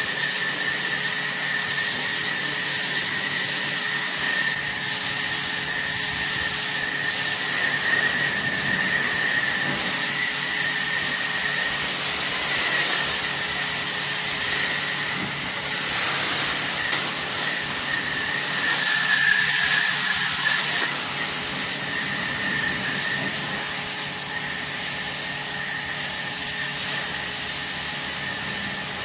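Pressure washer spraying: a steady, loud hiss of the water jet with a thin, steady high tone running under it.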